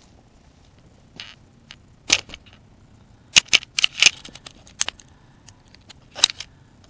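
Handling noise on the camera: fingers knocking and rubbing against the body right by its microphone, giving a run of sharp clicks and taps, thickest about two, three to four, and six seconds in.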